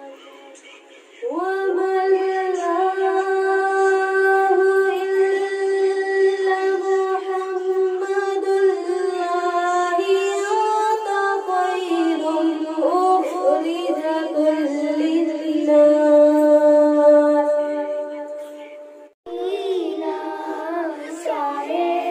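A woman's voice singing a naat into a microphone without instruments, in long held, ornamented notes that begin about a second in. After a sudden break near the end, a girl's voice takes up the singing.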